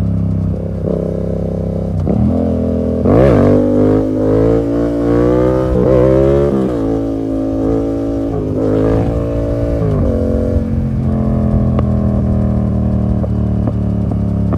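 Yamaha MT-07's parallel-twin engine through an open SC Project full exhaust with no dB killer. It runs steadily, then revs climb from about 3 s to nearly 7 s and drop off, with a shorter rev and drop around 9 s.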